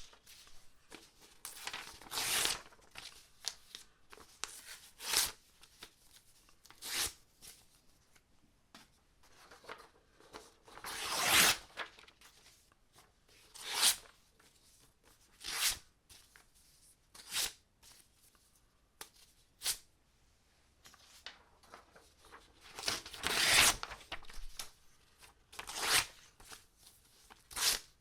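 Sheets of paper torn by hand, a dozen or so separate rips with short pauses between them, some quick and some drawn out over about a second.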